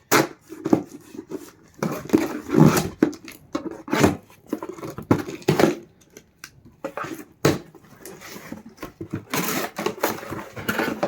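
Ceiling fan parts and packaging being handled while unboxing: irregular knocks and clatter, with a spell of rustling near the end.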